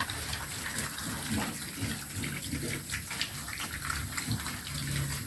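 Several pigs eating wet feed at a concrete trough: a steady run of chomping, smacking and slurping.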